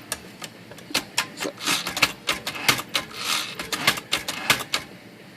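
Smith Corona Classic 12 manual typewriter being tried out after repair of its bent tab set lever: a long run of sharp, irregular mechanical clicks with a few short rattles as the tab set and tabulator are worked and the carriage moves.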